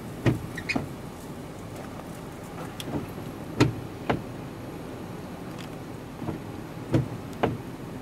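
Freight train of covered hopper cars rolling slowly past, its wheels clacking over the track in pairs about half a second apart, a pair every three seconds or so, over a steady low rumble.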